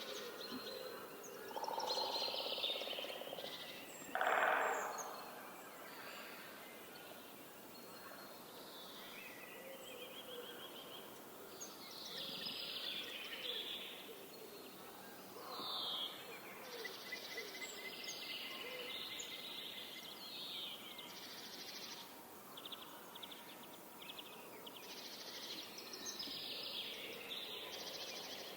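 Forest birdsong: several birds calling and trilling over a faint steady background, with a woodpecker among them. A short, louder, lower-pitched call comes about four seconds in, and rapid trills follow later.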